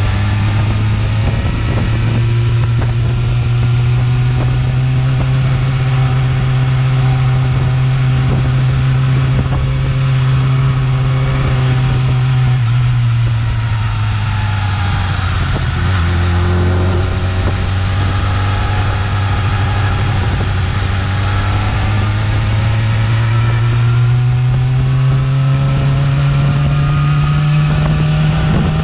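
Yamaha R6 inline-four engine on its stock exhaust, running steadily. Its pitch eases down about halfway through, then slowly climbs again.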